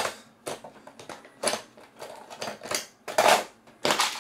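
Metal hand tools clinking and clattering as a hand rummages through a tool case, a string of sharp, irregular clinks.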